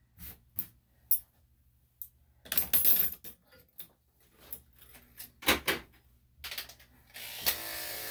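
Clicks and light rattles of grooming tools being handled, then electric dog clippers with a #5 blade switching on about seven seconds in and running steadily.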